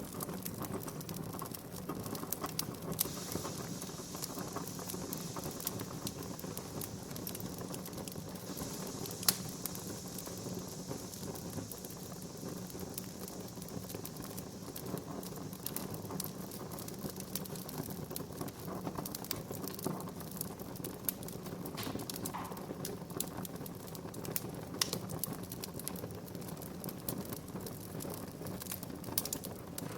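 Wood fire burning in a fireplace, crackling steadily with many small snaps and a sharper pop about nine seconds in.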